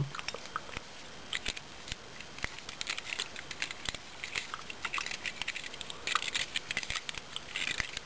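Small irregular metallic clicks and scrapes as a Zippo lighter's insert is handled and the brass flint-spring screw is threaded back in.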